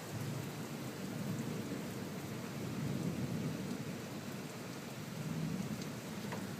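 Thunderstorm: steady rain with low rolling thunder that swells and fades several times.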